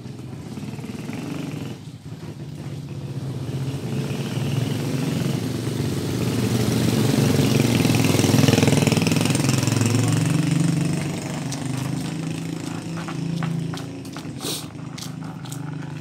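A motor vehicle's engine passing along the street: it grows to its loudest about halfway through, then fades away. A few sharp clicks come near the end.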